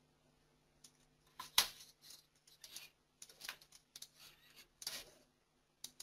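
Irregular clicks and taps of a computer mouse and keyboard, about a dozen, the sharpest about one and a half seconds in, over a faint steady electrical hum.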